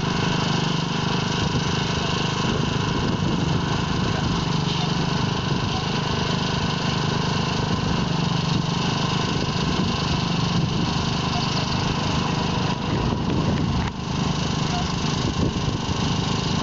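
Engine of a heavy-haul truck rig running steadily with a constant low hum as it moves slowly with an oversize load.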